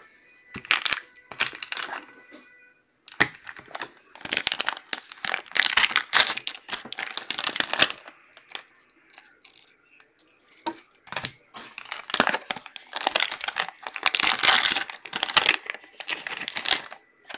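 Shiny black foil wrapping of a football card pack being torn open and crinkled by hand, in three bursts of rustling with short pauses between.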